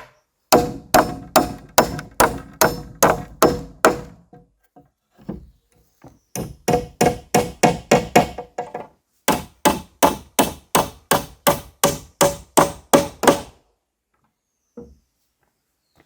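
Rapid blows of a hand tool striking wood in three runs of quick, even strokes, about three a second, each with a short ring; it stops for the last couple of seconds.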